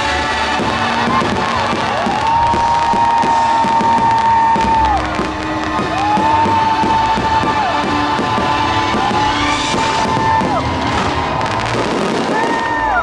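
Fireworks show soundtrack over the park's loudspeakers: music with a voice holding long notes, about two seconds each, the last one higher. Fireworks bangs and crackles and crowd noise run underneath.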